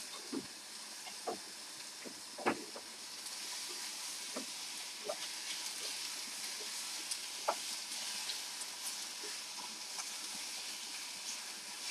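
Chicken pieces frying in a pan with a little butter: a steady sizzle that grows a little louder after about three seconds, with occasional knocks of a utensil in the pan, the loudest about two and a half seconds in.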